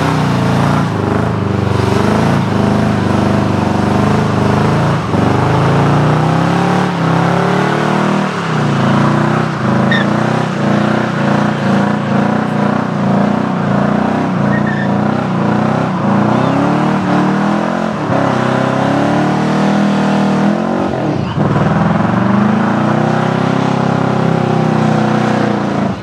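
Classic American muscle car doing a long burnout, its engine held at high revs with the pitch wavering up and down as the throttle is worked. The spinning rear tyres hiss and squeal underneath as they smoke.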